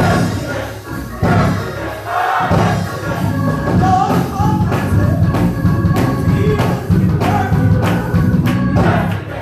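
Live gospel music: a choir singing over a band with drums and bass keeping a steady beat.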